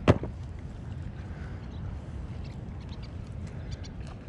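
A single short, sharp bird call right at the start, over a steady low rush of wind and water.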